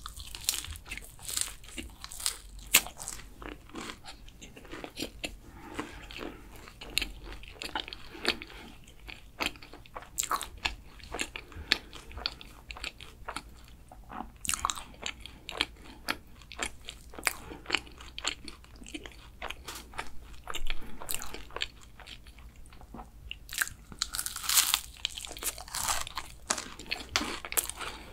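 Crisp, caramelized matcha kouign-amann pastry being bitten and chewed, with many sharp crackling crunches. A denser run of crunching comes about 24 seconds in.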